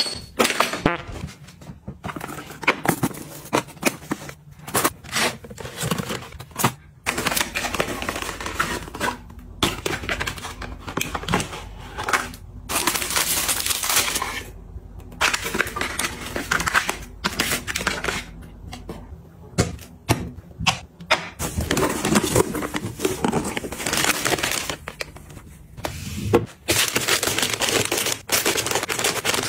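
Close-up handling sounds of bathroom products and packaging: a quick run of taps and clicks mixed with crinkling and rustling, broken by short pauses.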